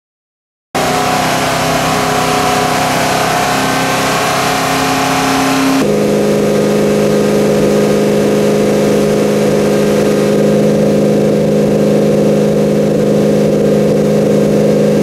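Camaro SS's LS3 V8 exhaust running at a steady engine speed. About six seconds in, the note drops abruptly to a lower, steady pitch.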